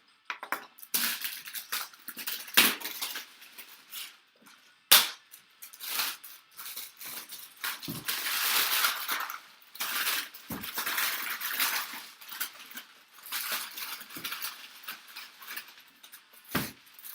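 Plastic shrink wrap being torn and crumpled off a sealed box: irregular crackling and rustling with a few sharp clicks and knocks.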